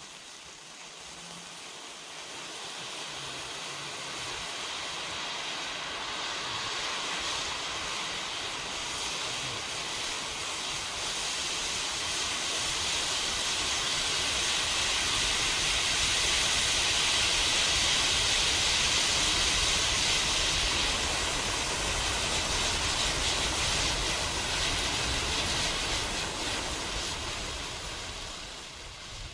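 A large heap of sparklers burning all at once: a steady fizzing hiss that grows louder as the fire spreads through the pile, peaks a little past halfway, then eases off toward the end.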